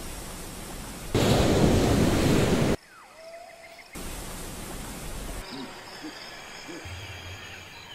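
Spliced nature ambience: blocks of steady rushing noise that start and stop abruptly, the loudest lasting about a second and a half, then from about three seconds in faint bird calls with whistled, gliding notes over a quiet background.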